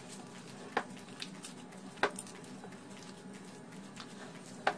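Hands kneading soft corn-flour dough in a glass bowl: faint squishing and patting, with three sharp clicks or slaps, about a second in, about two seconds in and near the end.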